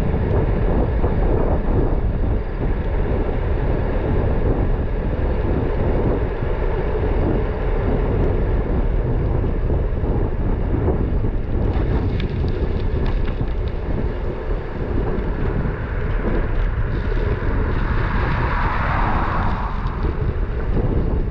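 Wind buffeting the microphone of a bike-mounted action camera while cycling, a loud steady rush with heavy low rumble. A few light clicks come about twelve seconds in.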